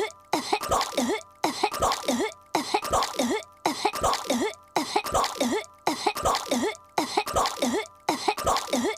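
A cartoon girl's voice coughing and croaking as if choking on chewing gum. The same short clip of a few coughs is looped over and over, repeating about once a second with a brief gap between repeats.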